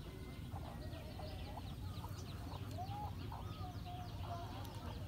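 Domestic hens clucking in short curved calls, with a scatter of quick high chirps over a steady low rumble.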